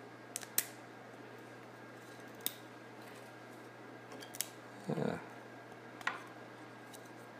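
3D-printed plastic face-shield visor bands being pried apart from a print stack by hand: scattered sharp clicks and snaps of the plastic, with one duller thump about five seconds in.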